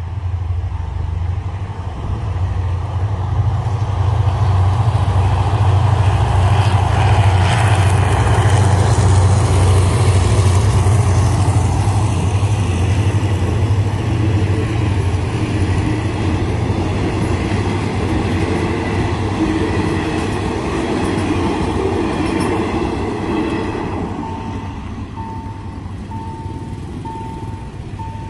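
State Railway of Thailand diesel-hauled passenger train passing a level crossing: a low engine hum builds as the locomotive approaches and goes by, then the coaches roll past with steady wheel-on-rail noise. The train noise fades near the end, leaving the crossing's warning beeper pulsing steadily.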